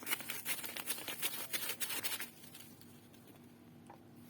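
Fast, light pattering and rustling for about two seconds as dry ingredients are shaken from a packet onto ground kanafeh dough, then it goes quiet.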